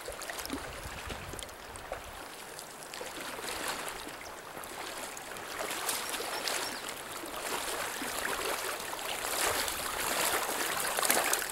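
Steady rush of river water over a shallow riffle, with splashing from legs wading through the current that grows louder toward the end as the wader comes closer.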